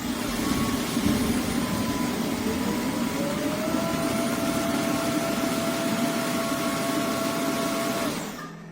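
Roborock F25 GT wet-dry vacuum running its roller self-clean after soaking the roller: a loud steady motor and roller noise starts suddenly, with a whine that glides up about three seconds in, and fades out near the end.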